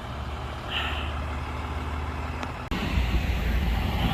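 Truck engine idling, a steady low rumble. It drops out briefly about two-thirds of the way through and comes back louder.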